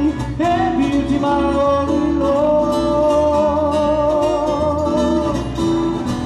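Live Hawaiian song performed by a small group on guitars and bass: a singer holds one long high note with vibrato for about five seconds over strummed guitar and a steady bass line.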